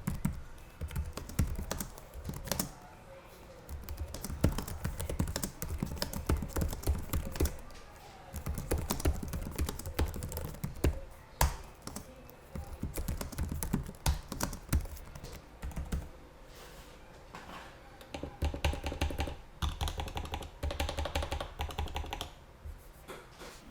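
Typing on the MSI GE73 Raider RGB laptop's SteelSeries RGB backlit keyboard: runs of rapid key clicks in bursts of a few seconds, with short pauses between them.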